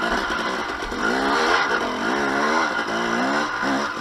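2007 KTM 250 XC-W two-stroke enduro engine under way, its pitch rising and falling several times as the throttle is opened and closed.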